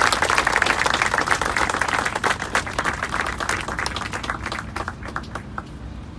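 Seated audience applauding, the clapping thinning out to a few last scattered claps and stopping about five and a half seconds in.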